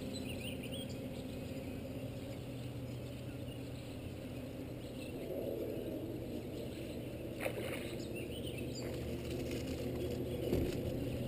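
Bass boat's electric trolling motor running with a steady low hum, with a few faint bird chirps and a single brief click about halfway through.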